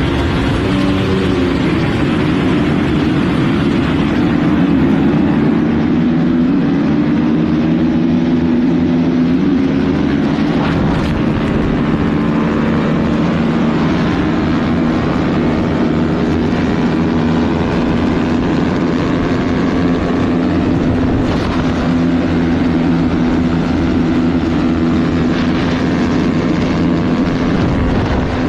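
Motocross bike engine heard from on board, its note shifting as the bike gets away from a standing start and then held high and fairly steady at speed.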